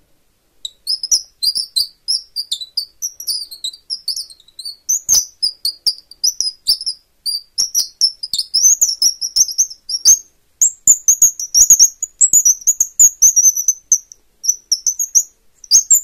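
Twist-type bird call, a metal eye bolt turned against a wooden plug, squeaking out rapid, high, bird-like chirps and twitters. About halfway through the chirps turn higher and run together more.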